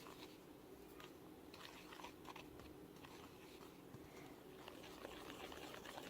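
Faint, scattered sticky clicks of toothpaste-and-glue slime being stirred in a plastic container. The slime is pulling away from the plastic, a sign that it is nearly formed.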